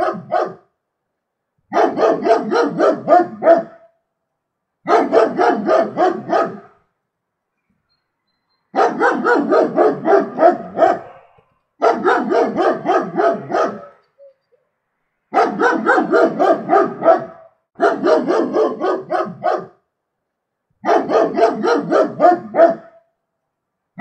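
German Shepherd barking in quick runs of about two seconds, several barks a second, with short silences between runs; seven runs in all.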